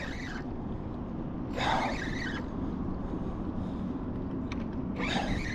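Steady low rumble with a faint steady hum under it, and two short hissy noises, one about two seconds in and one near the end.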